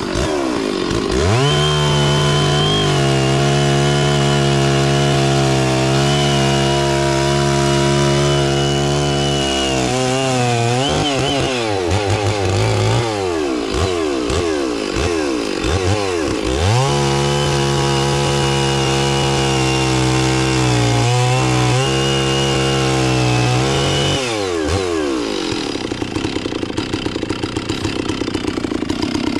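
Chainsaw cutting through a fallen tree in two long cuts, each held at a steady high rev for about eight seconds, then dropping back to idle between them and near the end.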